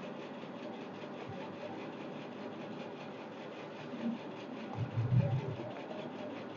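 Low steady background hiss of room tone, with a couple of faint low bumps about four and five seconds in.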